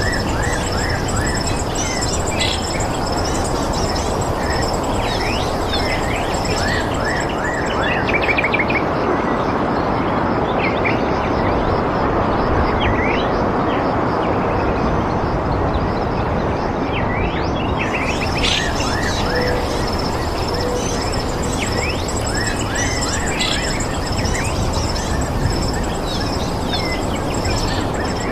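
Outdoor nature ambience: many small birds chirping over a steady rushing noise. A high, rapid pulsing trill, typical of insects, runs alongside and stops for about ten seconds in the middle.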